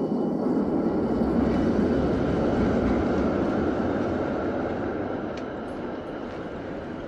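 Train noise: a rushing rumble that starts suddenly, then slowly fades away.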